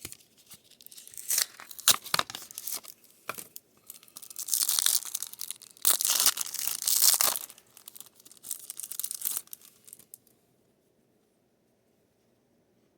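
Wrapper of an Optic football card booster pack being torn open and crinkled: a run of rustling tears with sharp crackles, loudest in two long rips midway, then it stops about ten seconds in.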